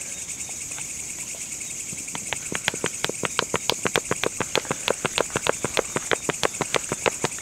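A small plastic spice jar with a shaker lid shaken over a bowl of mashed potatoes: a fast, even run of light clicks, about five a second, starting about two seconds in. Crickets chirr steadily throughout.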